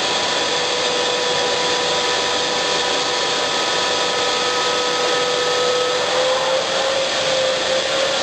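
Pond vacuum cleaner running steadily, sucking the air out of a koi dome through its evacuation pipe so that pond water rises to fill the dome. Its hum rises slightly in pitch about six seconds in.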